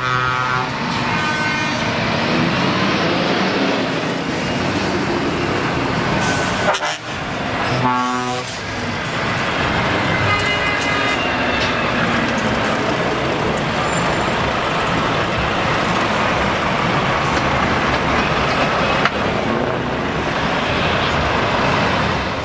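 Heavy trucks driving slowly past with a steady engine and exhaust rumble. A truck air horn sounds briefly at the start and again about eight seconds in.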